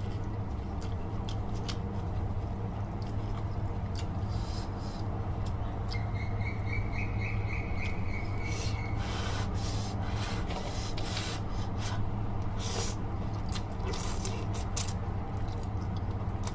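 Close-up eating sounds of instant noodles and crackers: scattered small mouth clicks and chewing, with short noisy slurps and crunches in the second half, over a steady low hum. A thin high tone sounds for about three seconds from around six seconds in.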